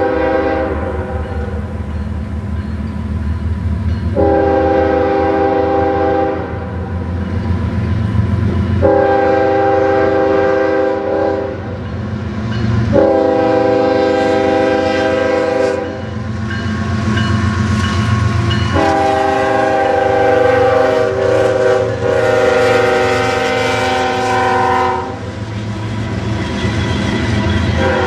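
CSX freight train's air horn sounding a series of long multi-tone blasts as the locomotives pass through a grade crossing. Under the horn runs the steady rumble of the diesel locomotives and the cars rolling over the rails.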